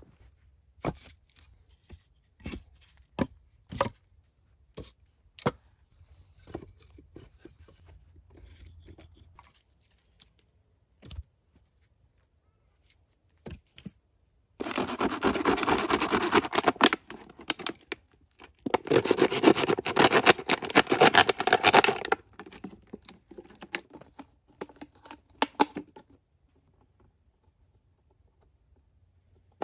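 Scattered clicks and knocks, then two loud spells of tearing, each about three seconds long, with a short pause between them.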